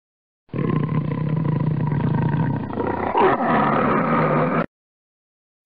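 Tiger roaring: one rough, loud call of about four seconds that starts half a second in and cuts off abruptly.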